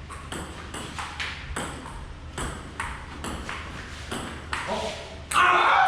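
Table tennis ball clicking back and forth off paddles and table in a rally, about two to three sharp hits a second. Near the end a loud voice cries out over it.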